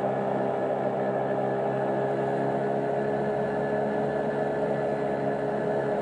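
Marine engine running steadily: an even drone made of several fixed tones.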